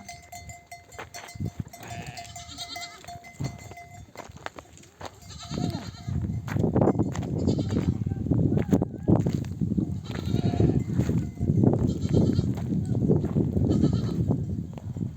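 A flock of sheep bleating, ewes calling for their lambs to suckle. It becomes much louder and denser from about five and a half seconds in.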